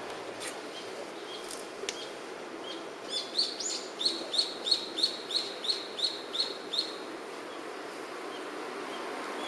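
A bird calling: a run of about ten short, high, evenly spaced chirps, roughly three a second, with the first few sweeping upward. Behind it is a steady low hiss.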